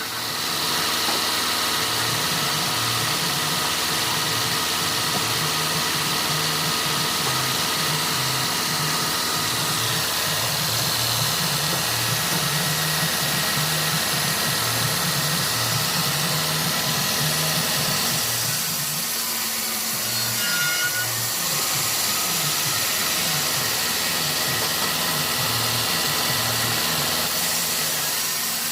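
Sawmill machinery running with a steady drone.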